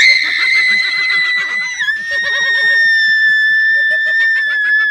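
A young woman's single long, high-pitched scream of fright, held steady. Its pitch drops a little about two seconds in.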